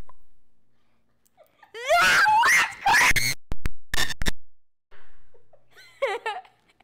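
A girl screams excitedly for about a second and a half, then laughs in short broken bursts, around the popping of a balloon blown up by baking soda and vinegar.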